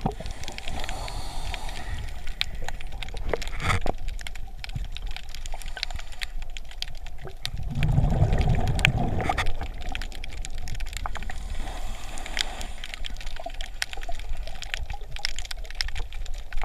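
Underwater recording of bubbling and gurgling water, with a heavier burst about eight seconds in, typical of a scuba diver's exhaled bubbles. Scattered sharp clicks and crackles run throughout.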